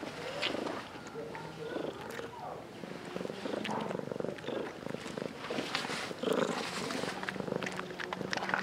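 A cat crunching dry kibble, with sharp crunches and clicks over a low, steady rumble from the cat's throat.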